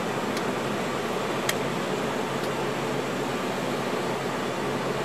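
Steady cockpit noise of a Lockheed L-188 Electra in flight: the drone of its four Allison 501 turboprop engines and airflow, with a low hum. Three faint ticks fall about a second apart near the start.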